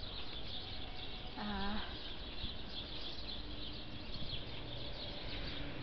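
Many small birds chirping at once from bushes, a continuous overlapping chatter of short high chirps.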